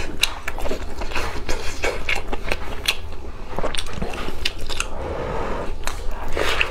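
Close-up eating sounds of a braised pork knuckle being bitten and chewed, with irregular wet smacking and clicking of mouth and meat.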